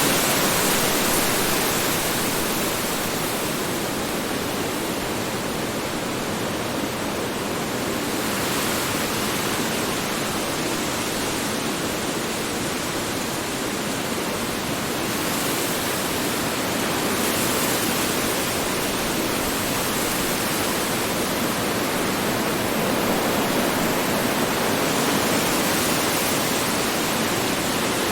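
Strong wind blowing steadily, a dense rushing noise that swells and eases slightly every few seconds, with gusts strongest near the start and again in the latter half.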